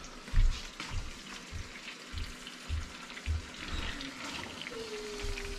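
Salmon fillets frying in butter and olive oil in a frying pan, a steady sizzling hiss, with soft low bumps as more pieces are handled and laid into the pan.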